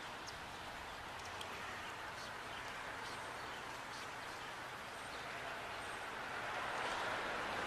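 Rail-yard wing snow plow pushing and throwing snow off the track, heard from a distance as a faint, steady rushing hiss that swells near the end.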